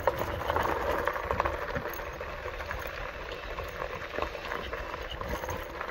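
Gravel crunching and popping under movement along a gravel road, with a steady low rumble of wind on the microphone.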